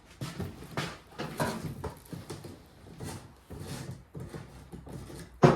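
Irregular scraping and clicking of the gas cap being unscrewed on an Ariens 722 snowblower, with one sharp knock near the end.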